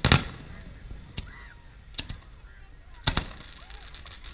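Aerial fireworks shells bursting overhead: a loud bang right at the start, then fainter booms about once a second, two of them close together near the end.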